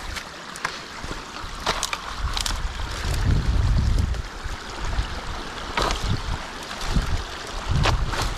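Potato rake pulling sticks out of a beaver dam: several sharp cracks and snaps of sticks over a steady wash of water. Wind rumbles on the microphone a few seconds in and again near the end.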